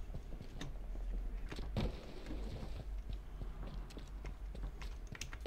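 Faint, scattered clicks and taps of a cheap membrane keyboard and mouse being played on, a few isolated strokes, the sharpest about two seconds in, over a low steady hum.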